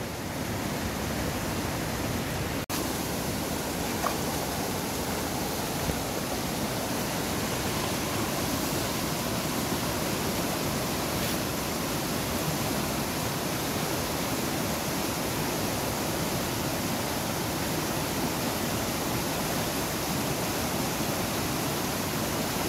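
Steady rushing of a fast-flowing river, cutting out for an instant once early on.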